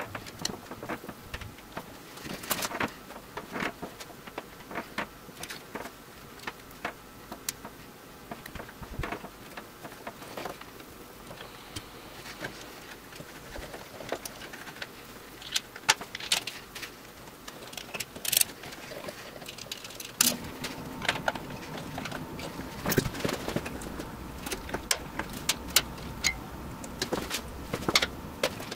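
Irregular small clicks, taps and light metallic rattles of hand work on automotive wiring: wires, connectors and small tools being handled. A low steady hum comes in about two-thirds of the way through.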